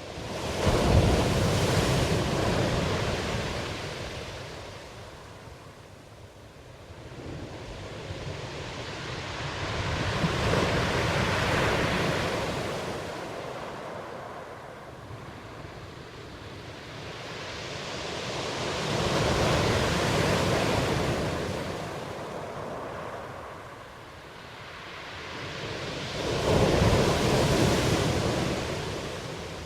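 Ocean waves breaking and washing in: four swells of surf about every eight to nine seconds, each building and then easing back into a steady hiss.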